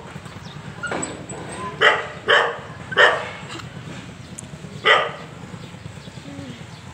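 A dog barking, four short separate barks over a few seconds, with a low steady hum underneath.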